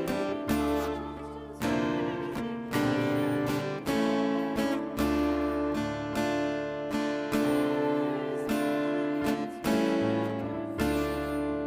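Acoustic guitar strumming chords, one strum about every second, each chord ringing and fading before the next.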